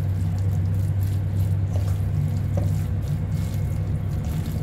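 Sauce-coated soba noodles being tossed by hand and spatula in a stainless steel bowl, with soft wet squelches and scrapes, over a steady low hum.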